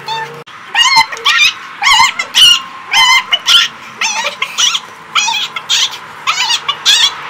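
Two girls letting out high-pitched, wavering whoops and yelps in a mock war cry, in short loud bursts about twice a second.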